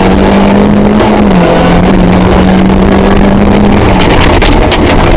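Rally car engine running hard at steady high revs, very loud, its pitch dipping slightly about a second and a half in and breaking briefly near the end, with a run of sharp clicks near the end.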